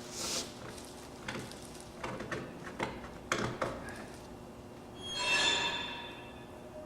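Thin plastic drop cloth being handled and smoothed out, rustling and crinkling with a swish at the start and scattered light clicks, then a brief squeaky screech about five seconds in.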